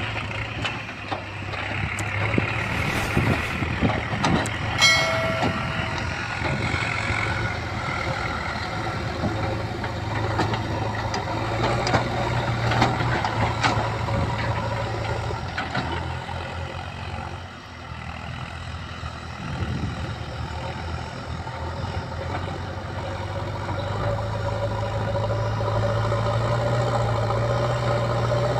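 JCB backhoe loader's diesel engine running steadily, with scattered knocks and clanks from the machine at work and a brief high tone about five seconds in. The engine grows louder in the last few seconds.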